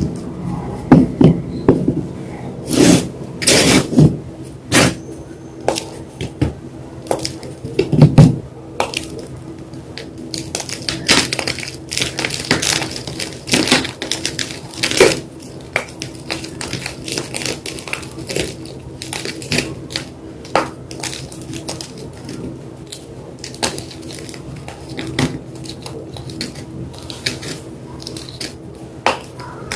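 White gym chalk crunching and crumbling under pressure: irregular sharp crunches and cracks, the loudest in the first nine seconds, then lighter, quicker crumbling.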